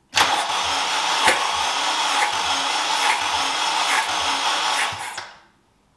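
Honda K20A engine cranked over on its starter motor for a compression test, with the spark plugs out and the injectors unplugged. It cranks steadily for about five seconds, then stops abruptly.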